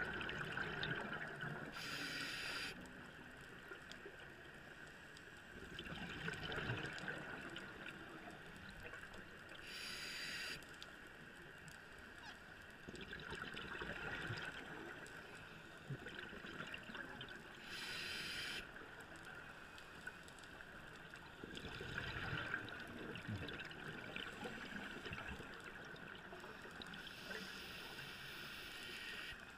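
Scuba regulator breathing heard underwater: a short hiss on each inhalation and a longer bubbling gurgle on each exhalation, repeating about every eight seconds.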